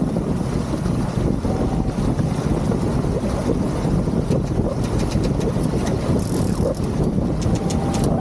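Wind buffeting the microphone over the rush of water along the hull of a sailing yacht under way, a loud, steady noise heaviest in the low end.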